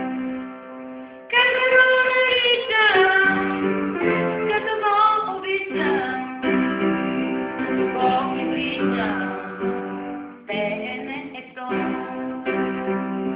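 Upright piano chords with a girl singing a melody over them, her held notes wavering and gliding in pitch.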